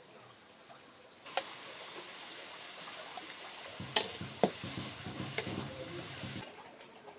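Shredded chayote squash sizzling as it is stir-fried in a wok, with a few sharp knocks of a spoon and spatula against the pan. The sizzle starts about a second in and cuts off suddenly near the end.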